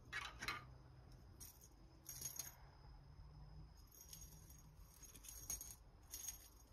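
Faint jingling rattles in about five short bursts a second or so apart, from a feather wand cat toy being jiggled, over a faint steady low hum.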